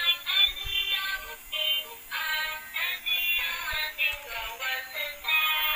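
Tinny electronic tune from a switched-on light-up toy Thomas train, a melody in short steps with almost no bass.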